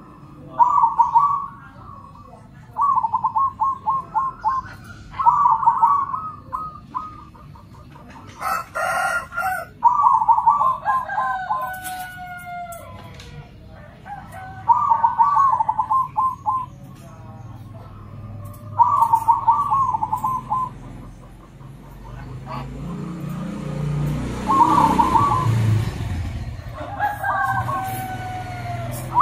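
Zebra doves (perkutut) singing back and forth: repeated trilled coos about a second and a half long, each a rapid run of pulses, one answering another every few seconds. A brief, harsher call from another bird comes a little under a third of the way in, and a low rumble builds and fades later on.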